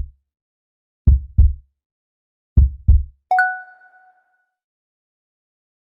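Knocking sound effect: three double knocks, each pair low and dull, about a second and a half apart, followed about three seconds in by a single bell-like ding that rings out for about a second.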